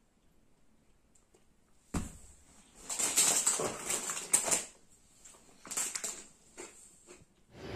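A snack bag crinkling and rustling in several crackly bursts as a hand rummages in it, starting with a soft thump about two seconds in.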